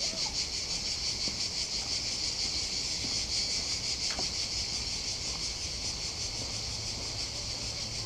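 Chorus of insects: a steady, high-pitched chirring with a fine rapid pulse that does not let up, over a faint low rumble.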